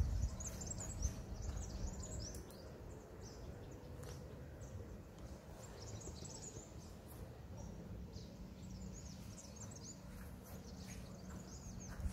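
Small birds chirping and singing in quick, high twittering phrases, over a low steady background rumble.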